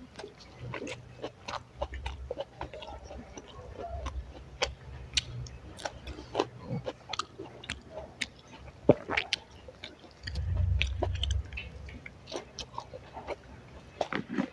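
Close-miked chewing and eating: a steady run of short, sharp, wet mouth clicks and smacks, with a low rumble for a second or so about ten seconds in.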